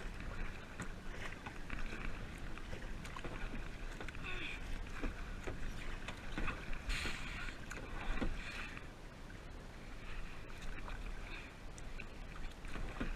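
Kayak paddle strokes dipping and splashing in shallow water, an irregular splash every one to three seconds, over a steady low rumble.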